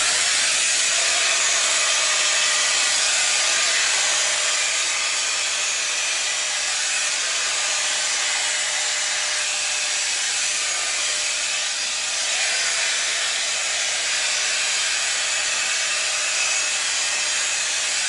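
Handheld 5-in-1 hot air brush with a round bristle brush attachment, its fan blowing. It switches on abruptly and runs as a steady rush of air with a faint hum.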